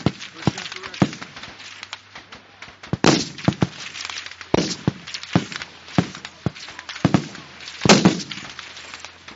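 Rifle shots cracking along a firing line at irregular intervals, a dozen or more, some close and loud, others fainter, each with a short echo; the loudest come about 3, 4.5 and 8 seconds in.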